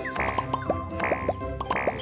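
Cartoon plopping sound effects, a quick run of short rising pops at about four a second, from the balls of a whack-a-mole style hammer game popping up, over bouncy children's background music.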